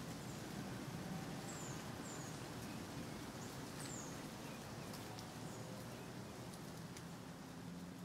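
Faint outdoor nature ambience: a steady hiss with a few short, high, falling bird chirps and some light clicks.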